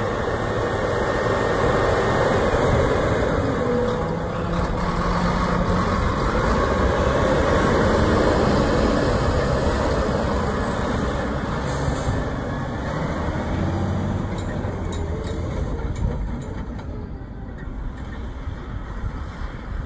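Volvo A35D articulated dump truck's diesel engine running under load as its raised dump body comes down. Later the truck drives off and the engine fades with distance.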